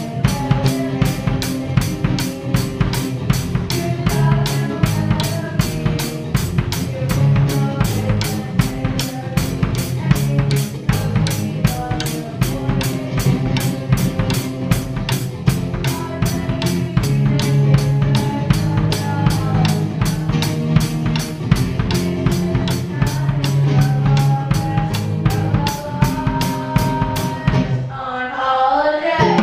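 A live band playing a song, with a drum kit keeping a steady beat of bass drum and snare, about three hits a second, under sustained chords. Near the end the beat stops and a short run of shifting notes follows.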